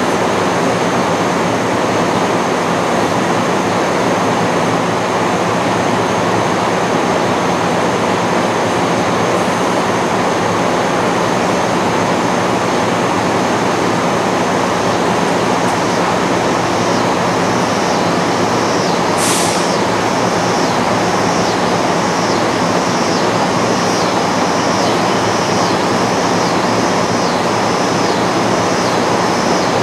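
MARC commuter train standing at the platform with its locomotive running: a loud, steady, even rumble and hiss with a low hum. Just past halfway a short sharp hiss, and from a little before that a faint high chirp repeats a little faster than once a second.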